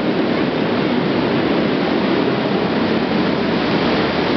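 Engines of small off-road trophy karts racing on a dirt track, heard as a steady, loud wash of noise.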